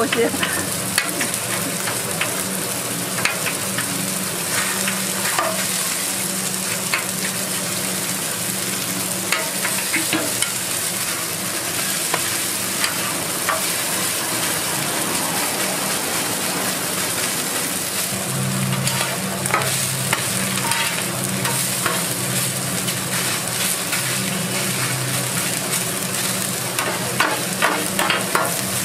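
Korean green-onion pancakes (pajeon) sizzling on a hot flat-top griddle, with scattered clicks and scrapes of a metal scraper cutting and moving them on the iron. A steady low hum runs underneath, stronger in the second half.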